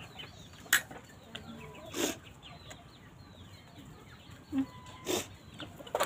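Domestic chickens clucking, with many short faint falling chirps. Three brief sharp clicks come about one, two and five seconds in.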